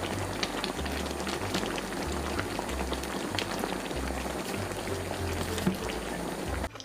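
Background music with a stepping bass line over a dense, steady crackling noise, cutting off abruptly just before the end.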